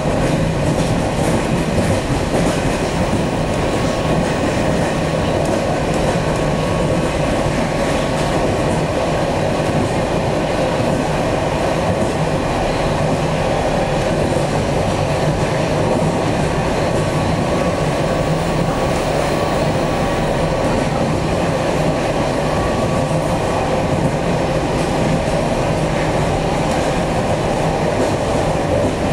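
EP2D electric multiple unit running at speed, heard from inside the passenger car: a steady rumble and rattle of wheels on rails, with a steady tone running through it.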